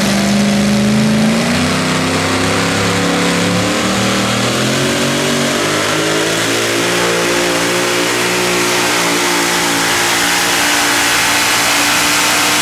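Super modified four-wheel-drive pulling truck's engine running hard at high revs under load, loud and steady. Its pitch climbs over the first couple of seconds and then holds.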